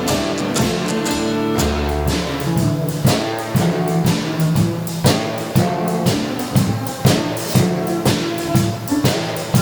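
Rock and roll band playing an instrumental passage with no vocals: guitar and bass over a drum kit keeping a steady beat.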